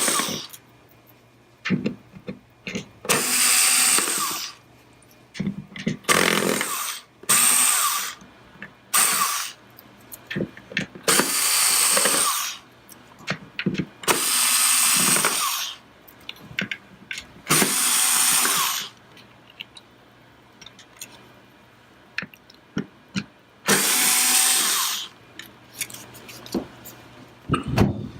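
Cordless power screwdriver whirring in short bursts of one to two seconds, about eight times, as it backs the screws out of a plastic antenna-panel housing. Small clicks and taps come between the bursts.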